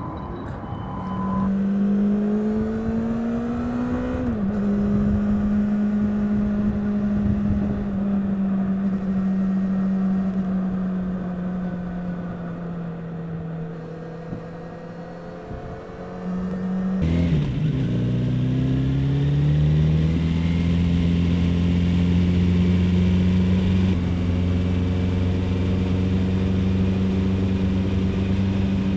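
Kawasaki Z900RS 50th Anniversary's 948 cc inline-four engine and exhaust while riding: the note rises under acceleration, drops sharply about four seconds in as it shifts up, then holds steady while cruising and slowly sinks as the bike slows. Just past halfway the sound changes abruptly, the note climbs again as the bike pulls away, and it then runs steady and louder to the end.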